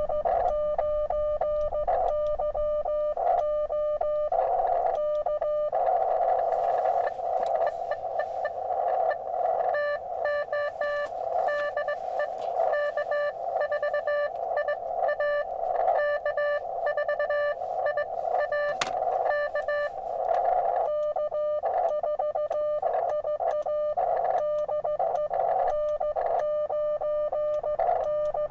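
Morse code tones from a QRP ham radio transceiver: the operator's keyed sidetone calling CQ, then an answering station's Morse coming in over band hiss through the middle, and the clean keyed sidetone again near the end as he sends a signal report.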